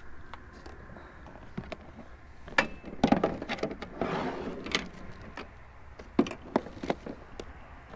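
Hands rummaging through a clear plastic storage bin and plastic food bags: scattered knocks and clicks of hard plastic, with a stretch of bag rustling about four seconds in.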